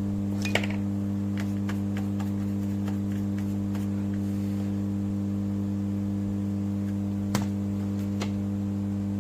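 Steady electrical mains hum, a low even drone, with a few light clicks: one about half a second in and two near the end.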